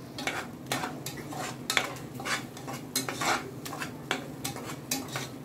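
Metal spoon stirring and scraping a thick masala in a pressure cooker pot, with irregular clinks and scrapes over a low sizzle: the spice powders being fried in oil until their raw smell cooks off.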